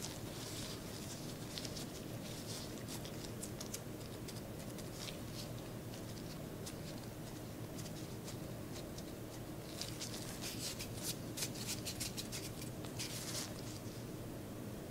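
Disposable gloves rustling and crinkling as the hands squeeze crumbly cookie dough together and roll it into a ball, with soft crackles throughout that come thickest about ten to thirteen seconds in.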